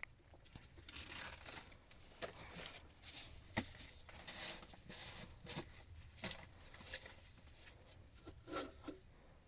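Rustling and rubbing handling sounds with scattered light knocks.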